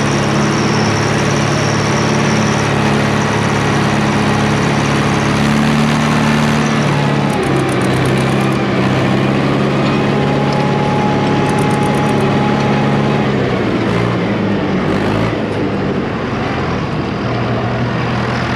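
Small vintage tractor engine running steadily under load while pulling an implement through the soil. Its note drops to a lower pitch about two-thirds of the way through.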